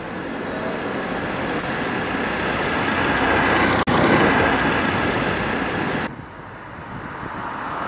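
Cars driving past on a city street, tyre and engine noise building steadily as a car approaches. It breaks off for an instant about four seconds in, stays loud as a taxi goes by close, drops away after about six seconds, then swells again as the next car nears.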